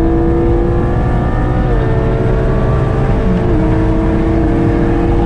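Porsche GT4's naturally aspirated flat-six accelerating down a long straight, heard from inside the cabin: a steady engine note that climbs slowly in pitch with a couple of small dips, over tyre and road rumble.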